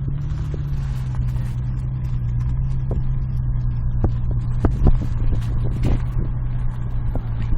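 An engine running steadily with a low hum and rumble, with scattered sharp knocks or clicks from about four seconds in.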